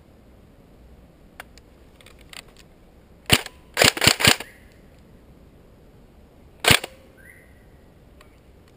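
Tokyo Marui G36C recoil-shock airsoft electric rifle firing close by: a single shot a little over three seconds in, a quick string of four shots half a second later, and one more shot about three seconds after that.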